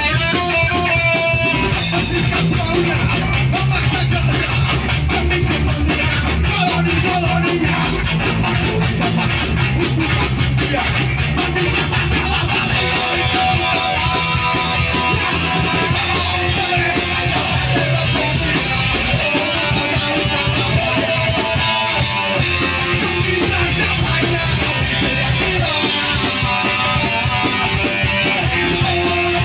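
Live rock band playing loud and without a break: distorted electric guitar, electric bass and a drum kit, with the guitarist singing into the microphone.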